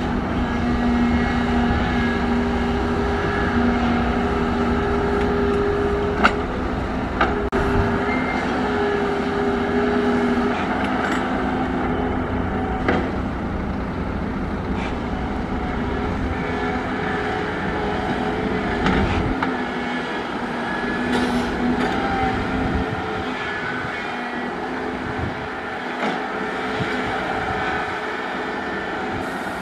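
Volvo crawler excavator's diesel engine running steadily as the bucket digs into a rock face, with a few sharp knocks of steel on rock. The deep rumble thins out about two-thirds of the way through.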